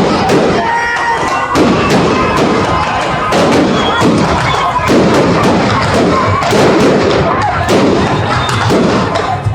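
Fireworks going off in quick, irregular succession, sharp bangs and crackles over the voices of a crowd.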